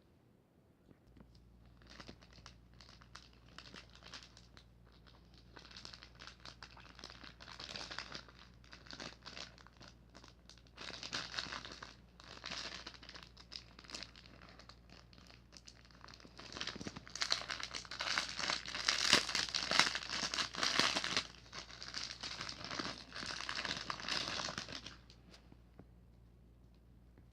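Packaging being crinkled and handled during an unboxing, in uneven crackling bursts that are loudest about two-thirds of the way through and stop shortly before the end.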